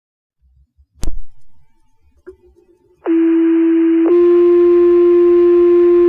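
Fire department two-tone paging alert over a radio channel: a radio click, then a steady tone for about a second followed by a slightly higher tone held for about three seconds, which cuts off sharply. It is the tone sequence that sets off the firefighters' pagers before the dispatcher's voice page.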